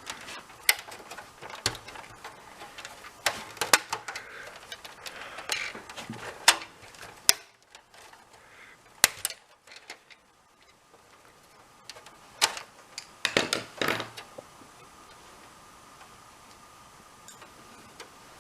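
Sharp, irregular clicks and knocks of an Xbox 360's plastic casing being pried up with a tool, in scattered clusters with pauses between them.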